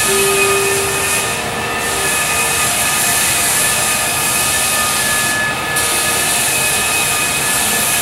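Floor sanding machine running: a steady high whine over a loud, even hiss.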